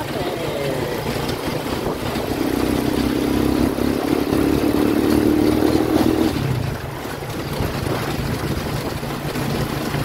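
Motorcycle engine of a sidecar tricycle running under way, heard from the sidecar with road and wind noise. The engine note is louder and steadier from about two seconds in, then drops back a little after about six and a half seconds.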